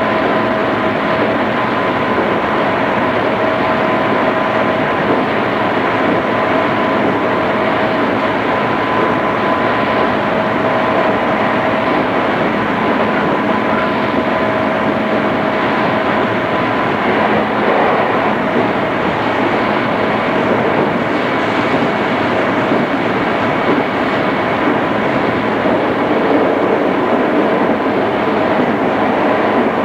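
Running noise of a JR East 211 series electric multiple unit at steady speed, heard from inside the car: an even rumble of wheels on rail with a thin steady whine that fades partway through, and a higher faint tone taking over near the end.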